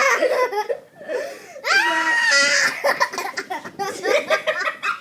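People laughing, with a long high-pitched vocal squeal about two seconds in.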